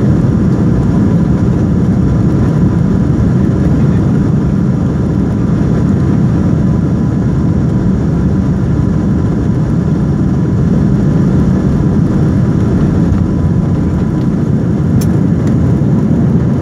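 Airliner jet engines at takeoff thrust during the takeoff roll, heard from inside the cabin over the wing: a steady, loud rumble with a faint steady whine.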